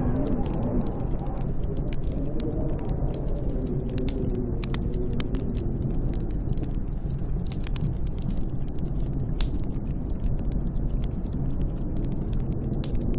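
Snowstorm wind howling: a steady low rumble with a moaning tone that slowly rises and falls in pitch, dotted with faint scattered crackles.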